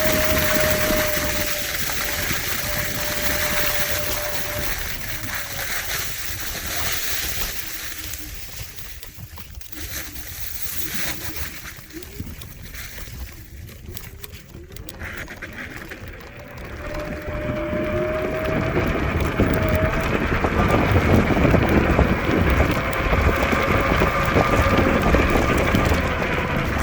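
Kaabo Wolf Warrior X GT electric scooter's motor whining with a steady tone while riding, under heavy wind rush on the microphone. The whine fades out through the middle, where everything goes quieter, then returns gliding slightly in pitch, with the wind rush louder near the end.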